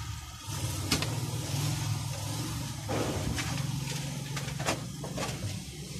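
Sharp clicks and knocks from the plastic back cover of an LED TV being lifted off and handled, over a steady low engine-like hum.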